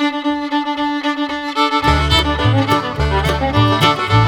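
Intro music: a fiddle tune with a held opening note, with bass and a steady beat coming in about two seconds in.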